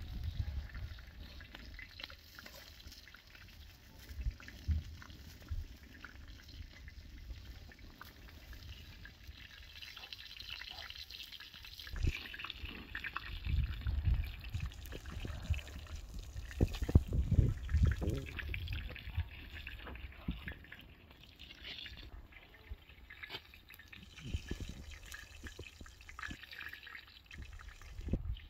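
Kitchen knife tapping on a wooden cutting board as cooked beef is chopped, in scattered short clicks, then a cloth and flatbread being handled, with bursts of low rumble in the middle.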